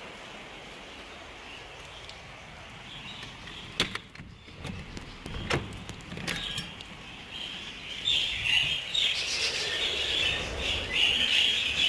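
Steady hiss of rain, then a few sharp clicks and knocks about four to six seconds in. From about eight seconds in, a flock of budgerigars chatters loudly and continuously.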